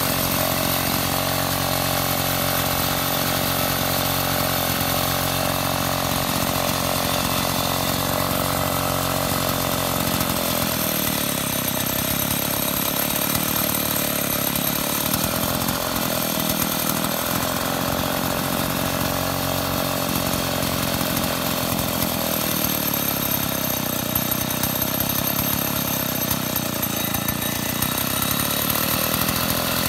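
STIHL 070 chainsaw, a large two-stroke, running steadily at idle. About ten seconds in, its note turns rougher and less even.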